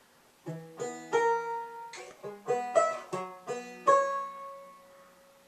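Plucked string instrument picking the opening phrase of a tune: about ten separate notes, each struck sharply and dying away, the last one left ringing.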